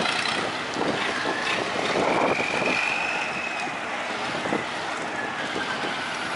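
Mixed din of many small boat engines running together on a busy waterway, with wind buffeting the microphone.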